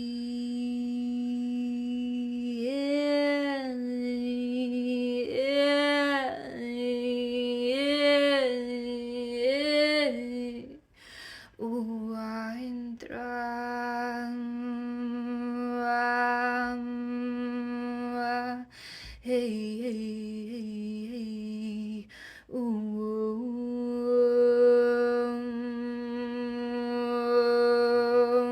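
A woman's voice humming long held notes on one steady pitch, with several brief swells up and back early on and three short breaks for breath.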